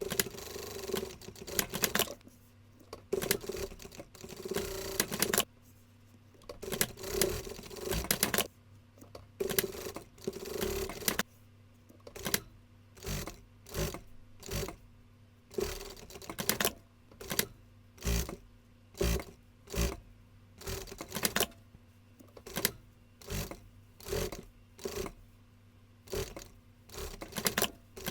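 Sewing machine stitching in stop-start runs of a second or two each. From about halfway in, these give way to short, evenly spaced strokes, a little more than one a second.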